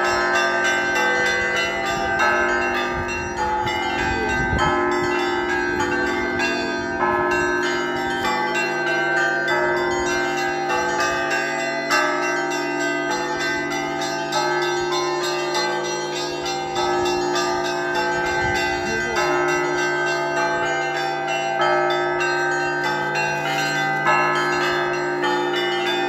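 Orthodox monastery church bells ringing a continuous peal, many bells of different pitches struck over and over and overlapping, calling to the evening service. A low rumble comes through twice.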